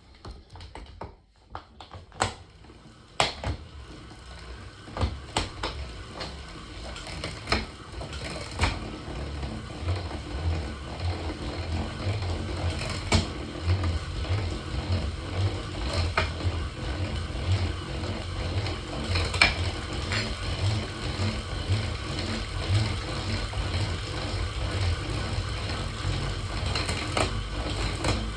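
SRAM Force AXS bicycle drivetrain making an unwanted mechanical clicking noise as it runs, a sign of a fault. Sharp clicks come at irregular intervals over a low rumble that builds over the first several seconds, then holds steady.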